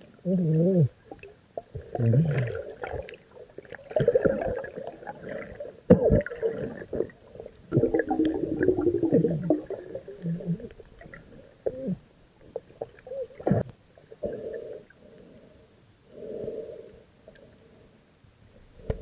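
Muffled underwater sound picked up by a submerged camera: irregular gurgling and bubbling of water coming and going in bursts, with a couple of sharp knocks.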